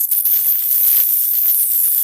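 High-pitched alien insect chatter sound effect: a dense, rapid rattling chitter over a hiss, sitting very high in pitch, with a brief dropout right at the start.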